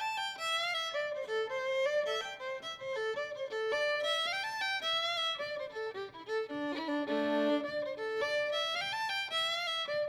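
Background music: a lively fiddle tune with quick running notes over a steady held drone note.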